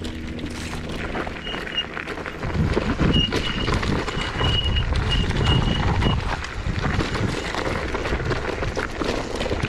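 Zero 10X electric scooter riding down a rough gravel and dirt trail. A steady low hum for the first two seconds or so gives way to a rough rumble of tyres over stones, with many small knocks and rattles from the scooter over the bumps.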